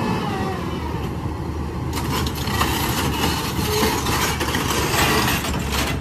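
SANY crawler crane's diesel engine running with a steady low rumble. From about two seconds in, it is joined by a rush of noise and clattering knocks.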